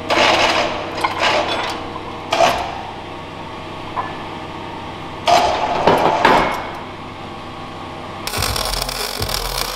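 Metal clanks and rattling chain as a steel tow-truck wheel-lift unit, hanging from a forklift on chains, is set into a pickup's frame rails. There are several sharp clanks with a short ring, the loudest about five to six seconds in. Background music comes in near the end.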